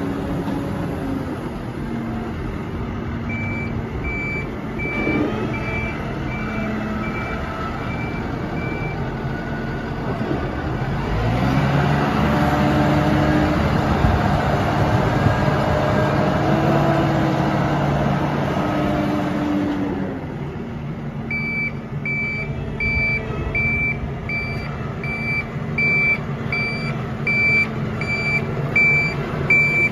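2018 Case IH Maxxum 115MC tractor's 115 hp FPT diesel engine running as it drives, with its reversing alarm beeping at a steady pace while it backs up, during the first third and again from about two-thirds in. In the middle the beeping stops and the engine gets louder, its pitch rising and falling as the tractor drives forward.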